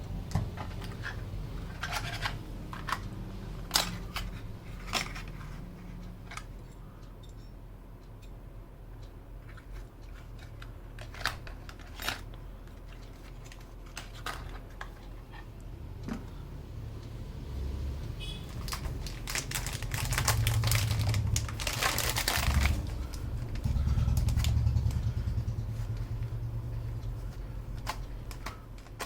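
Keystrokes on a Skyloong SK61 keyboard with Gateron optical switches: scattered single key clicks, then a fast run of typing a little past halfway. A low rumble runs underneath and swells during the fast typing.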